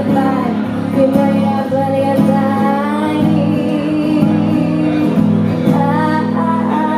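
A woman singing while strumming an acoustic guitar, holding one long note about three seconds in.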